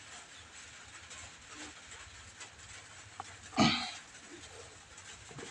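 One short animal call about two-thirds of the way in, over low background noise, with a faint click just before it.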